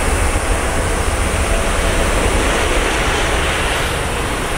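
Rolls-Royce Trent 892 engines of a Boeing 777-200ER taxiing: a steady rushing jet roar with a deep rumble underneath.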